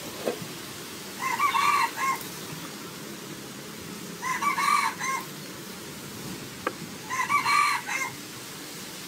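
A rooster crowing three times, each crow about a second long, roughly three seconds apart.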